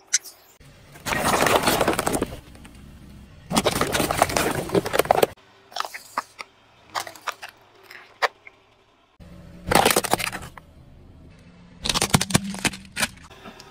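Car tyre crushing small objects one after another: soft rubber toys squashed, a plastic soda bottle bursting and spraying its drink, and hard plastic toy trucks cracking. Several loud bursts of crunching and crackling a second or two long, with sharp snaps and cracks between them.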